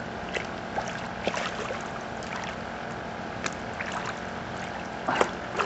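A small motor on the boat hums steadily, with a dozen or so short knocks and clicks scattered through, the loudest two near the end.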